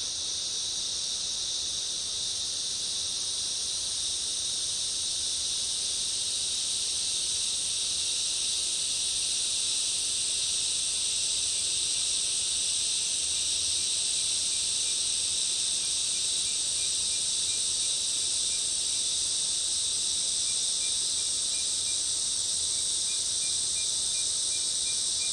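Summer rainforest ambience: a steady, dense high-pitched drone of many insects, unbroken throughout. About halfway in, a faint fast ticking insect call joins just below it, over a faint low rush of distant water.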